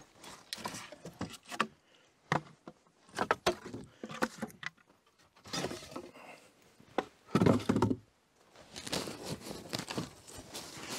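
Split firewood logs knocking and clattering against each other as they are pulled from a woodpile and dropped into a wooden carrying rack. It comes as a series of sharp knocks, with a heavier thud about seven and a half seconds in.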